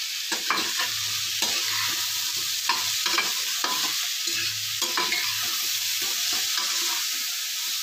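Cluster figs, onion and spices frying in oil in a stainless steel pan, with a steady sizzle, while a metal spatula stirs them, scraping the pan in repeated strokes about once or twice a second.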